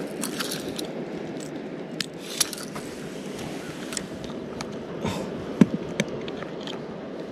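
Steady wash of sea water at a harbour quay, with a scatter of small sharp clicks and scrapes from gear being handled close by; the loudest click comes a little past halfway.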